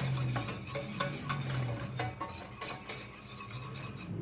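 Wire whisk stirring a butter-and-flour roux in a stainless steel saucepan, with irregular clinks and scrapes of the wires against the pan as the flour cooks.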